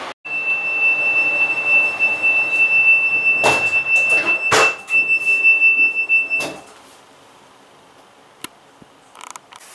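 Door-closing warning on a Renfe Avant train: a steady high-pitched beep for about six seconds, with a few heavy thuds as the vestibule doors shut. The tone stops with the last thud.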